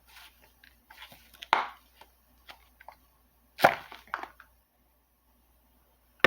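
Kitchen items being handled: a scattering of short knocks and clacks, the loudest about three and a half seconds in.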